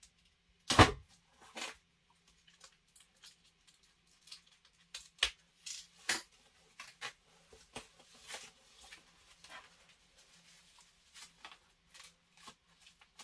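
Packaging being handled: a clear plastic bag crinkling and rustling in irregular short crackles as bed plates are lifted out of foam, with a sharper, louder crackle about a second in.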